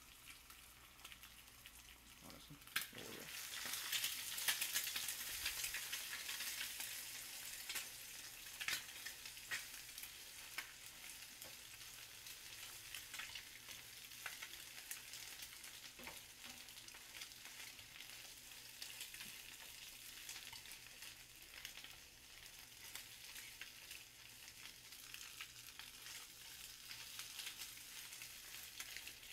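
Eggs sizzling in hot oil in a frying pan while a utensil chops and stirs them, clicking and scraping against the pan. The sizzle swells about three seconds in, then settles to a steady hiss.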